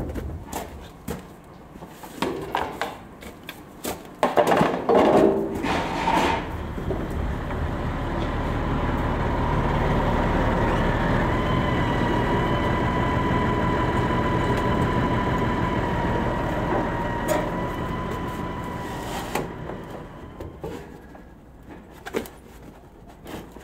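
A few knocks and rattles, then a tractor engine running with a steady whine, growing louder as it draws close and easing off about twenty seconds in, with a couple of clicks near the end.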